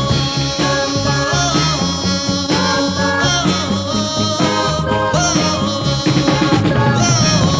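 Late-1960s pop band recording playing with a steady beat, no words sung.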